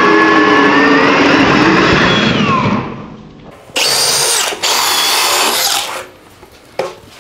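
Cordless hammer drill boring through wood with a 1-inch wood bit under load, its motor winding down about three seconds in. Then the drill motor is run freely in two short high-pitched whining bursts of about a second each, and a short knock follows near the end.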